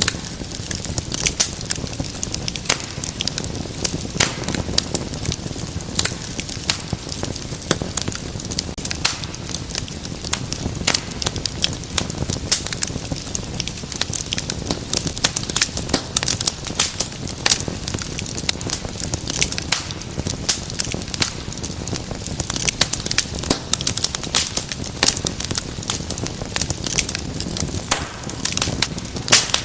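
Wood fire burning in a fireplace, with frequent sharp crackles and pops over a low, steady rumble of flame.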